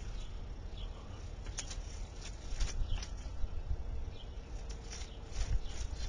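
Low rumble of wind on the microphone, with scattered light clicks and knocks as a wooden board carrying a foam volcano is handled and set down over a soda bottle.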